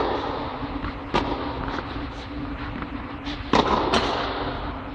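Tennis ball struck by rackets in a rally: sharp pops, one about a second in and two in quick succession about three and a half seconds in, each with a booming echo under a fabric air dome. A steady low hum runs underneath.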